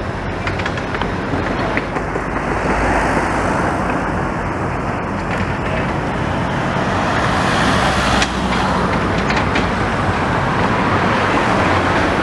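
Road traffic passing close by: a steady wash of car and engine noise that grows louder a few seconds in and again near the end as vehicles go past.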